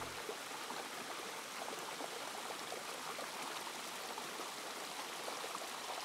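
Shallow rocky creek running steadily, a continuous faint rush of water with many small splashes and trickles.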